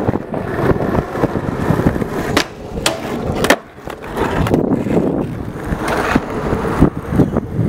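Skateboard wheels rumbling as the board rolls over asphalt, broken by several sharp clacks around the middle as the board is popped onto and off a box.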